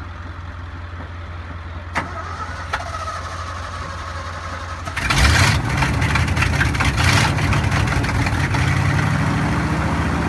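Old Ford truck's engine turning over on the starter while the gas pedal is pumped, then catching about five seconds in and running, with a few surges of revving.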